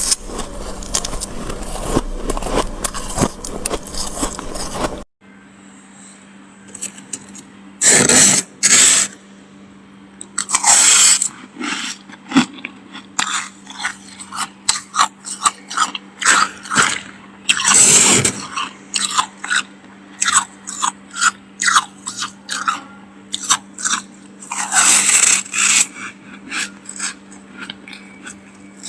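Thick freezer frost being scraped and crunched. About five seconds in the dense, continuous crunching stops suddenly; after that come separate scraping strokes and quick short crunches, a few of them loud, over a faint steady hum.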